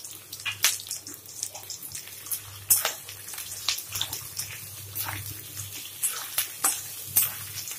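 Sliced onions frying in hot oil in a kadai: a steady sizzle broken by irregular crackles and pops, with the spatula scraping the pan as they are stirred.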